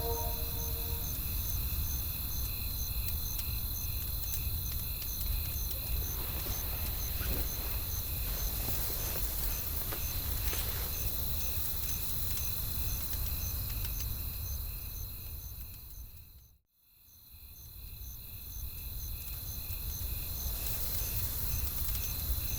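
Night-time woodland ambience: crickets chirping in an even pulse about twice a second over a low rumble of wind and a campfire, with a few faint crackles. The sound fades to silence about seventeen seconds in and fades back up.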